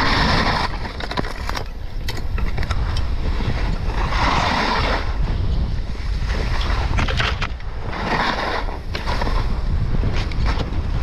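Wind buffeting the microphone over the hiss and scrape of snowtrike skis sliding on snow. The hiss swells louder three times, with scattered small knocks.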